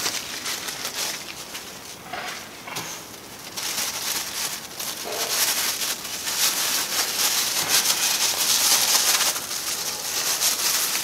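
Thin clear disposable plastic gloves and their plastic bag crinkling and rustling as the gloves are pulled on, louder and denser in the second half.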